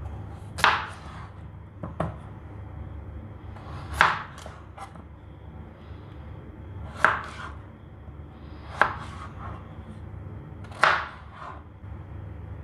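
Kitchen knife slicing through peeled raw potatoes and striking a plastic cutting board: five loud, sharp chops about two seconds apart, with a few lighter taps between them.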